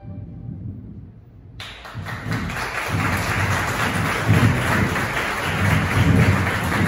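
A held musical chord fades away, then about a second and a half in an audience breaks into sustained applause, with low thuds running underneath.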